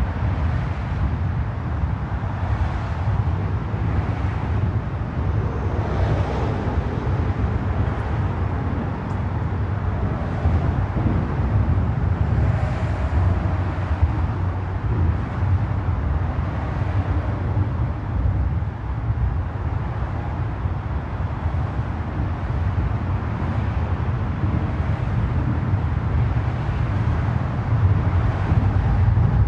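Bridge ambience: a steady low rumble of road traffic, with passing vehicles swelling up every few seconds.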